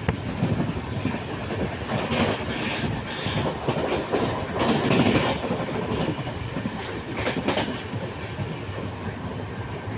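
Train running at speed, heard from a carriage window: continuous wheel-on-rail rumble and clatter, with louder surges now and then.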